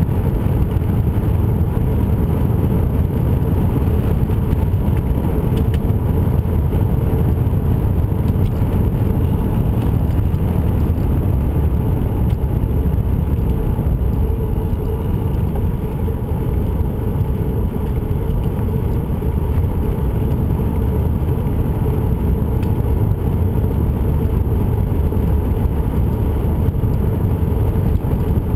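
Steady low rumble of wind buffeting and rolling noise on a camera travelling along a paved trail, with no breaks or sudden sounds.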